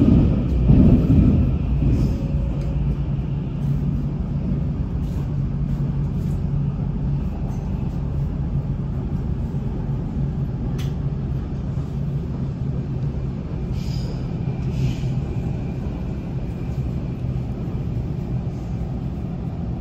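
Munich U-Bahn Type C2 train running through the tunnel: a steady low rumble of the car and its wheels on the rails, louder in the first couple of seconds, with a single sharp click about halfway through.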